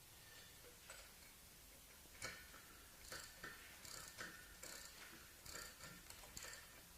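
Faint, sharp metallic clicks and clinks of pump parts being handled and fitted during reassembly, a scattered run of them from about two seconds in, each with a short ring.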